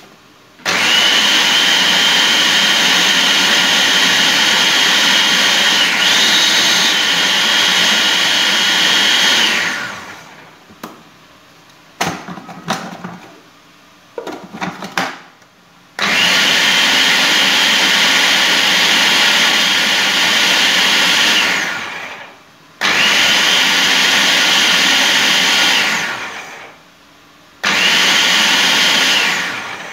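Electric food processor chopping green chillies and coriander, run in four stretches: the motor starts abruptly, runs with a steady high whine, and winds down each time it is switched off, the first run lasting about nine seconds. In the pause between the first two runs come a few short clattering knocks from the bowl and lid being handled.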